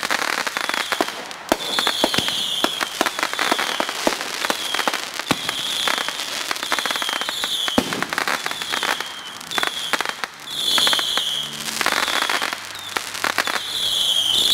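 Consumer fireworks going off: a rapid, irregular series of sharp pops and crackles from aerial shots and bursts. A short high-pitched hiss recurs about once a second.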